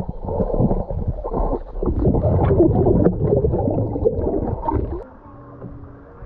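Sea water heard with the microphone underwater: muffled gurgling and bubbling as swimmers move close by, with the higher sounds cut off. It turns much quieter about five seconds in.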